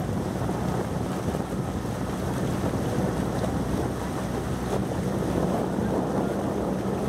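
Motorboat engine running steadily under the rush of water, with wind buffeting the microphone.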